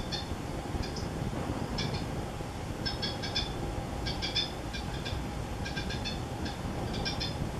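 Blue tit nestlings begging in the nest: clusters of high, rapid cheeps about once a second while an adult feeds them, over a steady low hum.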